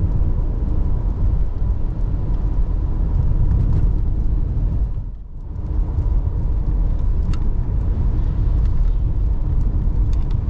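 Car driving on the road: a steady low rumble of tyres and engine, which dips briefly about halfway through.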